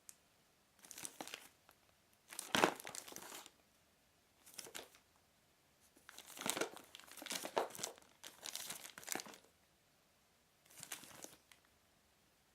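Plastic outer wrapper on a product box crinkling in about seven short bursts as it is handled and its seal is peeled open. The loudest burst comes about two and a half seconds in.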